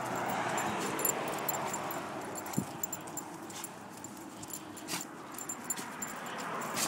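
A dog's collar tags and leash clip jingling in small scattered clicks as she walks on the leash, over a steady background hiss.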